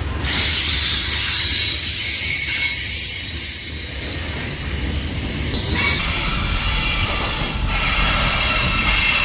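Freight train cars rolling past: steel wheels on the rails, a steady low rumble with thin high squealing tones from the wheels.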